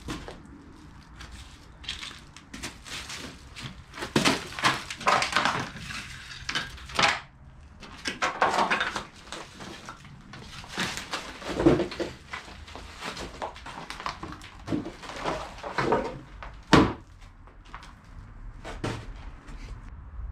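Irregular crunching and scuffing, like footsteps over loose debris, with scattered knocks. The sharpest single knock comes about three-quarters of the way through.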